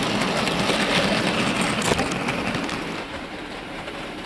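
Wagons of a model goods train rolling along the track, the wheels clicking over the rail joints. The sound drops about three seconds in as the train moves away.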